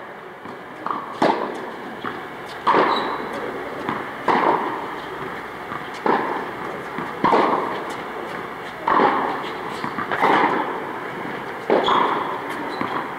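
Tennis ball struck back and forth by rackets in a rally, a sharp strike about every second and a half, each one echoing in an indoor tennis hall.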